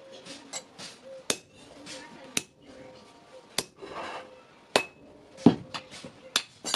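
Blacksmith's hammer striking steel on an anvil: a series of sharp metal-on-metal blows about one a second, some leaving a brief ring, with lighter clinks between.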